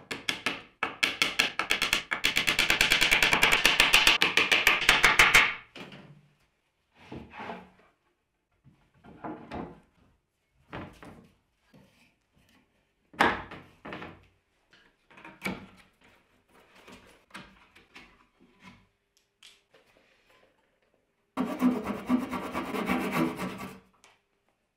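Fast rasping strokes on wood for about five seconds, then scattered knocks and clunks of wooden parts being handled. Near the end comes a quick run of short back-and-forth strokes from a flush-cut pull saw trimming protruding dowels off a hardwood bench.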